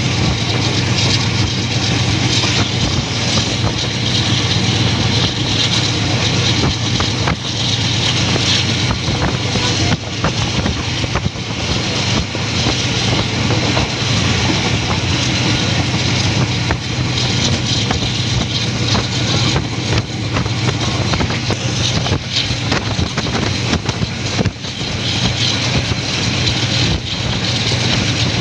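Passenger train running at speed, heard from an open coach doorway: a steady rumble of wheels on the track with rushing air, a constant low drone, and light clicks from the rails.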